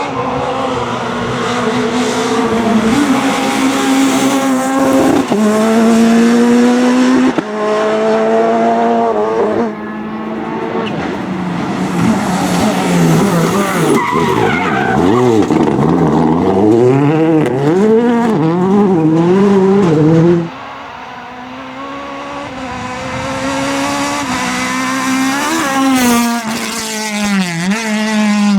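Rally car engines at full throttle on a stage. The pitch climbs and drops sharply at each upshift, then rises and falls quickly through throttle blips and downshifts. About twenty seconds in the sound cuts to another car, whose engine builds up and revs hard.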